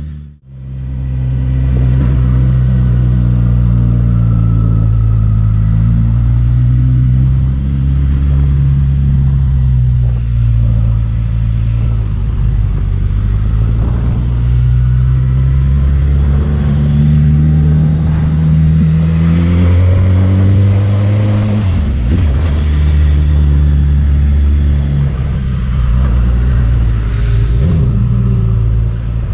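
Motorcycle engine running under load up a steep winding road, its pitch slowly rising and falling with the throttle and dropping suddenly about three-quarters of the way through, as at a gear change. A brief cut-out comes right at the start.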